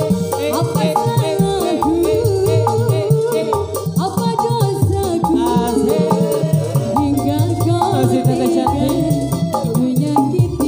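Live dangdut koplo music: an electronic keyboard playing the melody over a steady, driving kendang drum beat, with a voice singing along.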